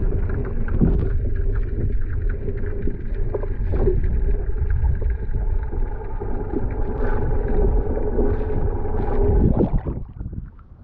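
Muffled underwater rumble and water noise picked up by a submerged camera, with a faint steady hum and scattered small clicks. It falls away sharply near the end as the camera comes out of the water.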